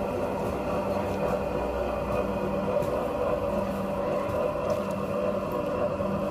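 Steady mechanical hum with several held tones, a lower tone among them coming and going every second or so.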